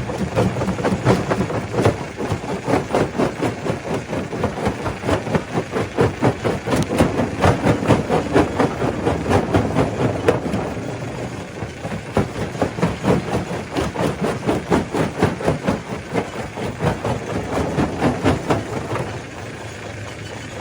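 Stone crusher running and breaking rock: a dense, irregular clatter of knocks and cracks over a steady machine hum, thinning out near the end.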